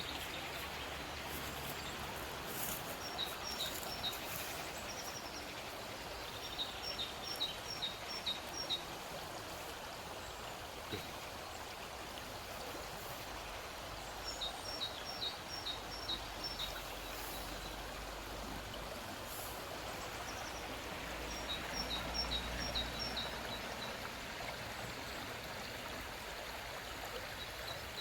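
Steady rush of a flowing stream, with a bird repeating a short song phrase of quick high notes every several seconds.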